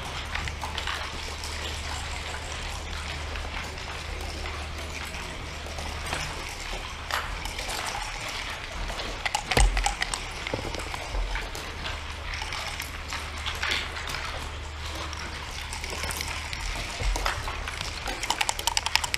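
Scattered clicks and knocks of backgammon checkers and dice on a wooden board over a steady low hum. One louder knock comes about halfway through, and a quick rattle of clicks near the end.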